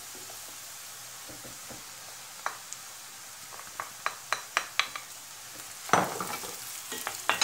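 Chopped onions and diced peppers sizzling steadily in hot butter and sunflower oil in a stainless steel frying pan. A wooden spoon clicks sharply against the plate and pan as the peppers are scraped in, and there is a louder burst of sizzling and stirring about six seconds in.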